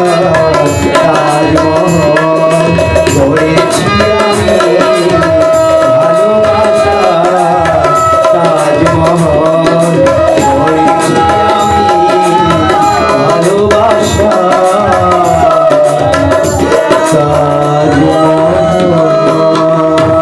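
Live Bengali song: tabla beating a steady rhythm under harmonium and bamboo flute, with a male voice singing into a microphone.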